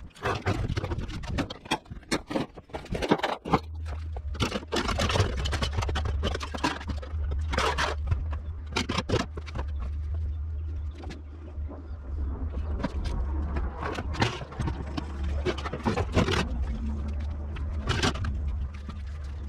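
Metal knocks, clanks and scraping from a washing machine being dismantled to get its drum out, with a steady low hum coming in a few seconds in.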